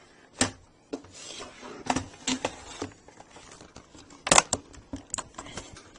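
Plastic clicks and knocks from a Compaq Presario C700 laptop being turned over and handled on a hard surface, a handful of separate knocks with the sharpest just past the middle.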